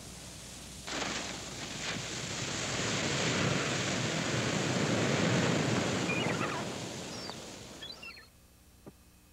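A rushing noise that comes in about a second in, swells for several seconds and then fades away, with a few faint high gliding whistles as it dies down.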